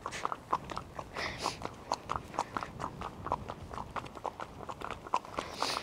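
Ponies' hooves clip-clopping on a tarmac lane at a walk, a steady run of sharp hoofbeats several times a second.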